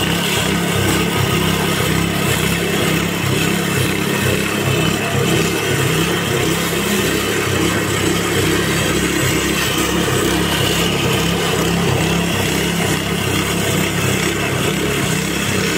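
Petrol engine of a Weibang lawn scarifier running steadily under load as it is pushed across the lawn, its blades cutting into the turf.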